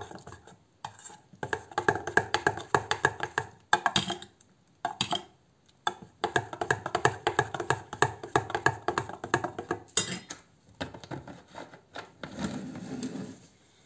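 A metal spoon stirring a semi-liquid batter in a stainless steel bowl: quick rattling clinks and scrapes against the bowl, in several bursts with short pauses.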